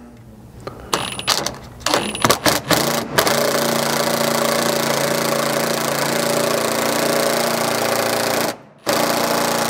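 Cordless impact wrench on its lowest setting driving the bolt of a rivnut setting tool, compressing a rivnut against the floor sheet metal. It runs in a few short trigger bursts, then steadily for about five seconds, stops briefly and runs once more near the end.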